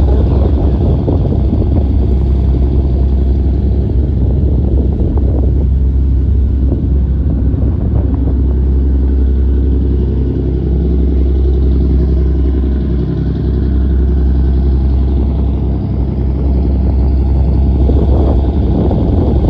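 A boat under way, its engine running with a steady low rumble, mixed with rushing wind on the microphone.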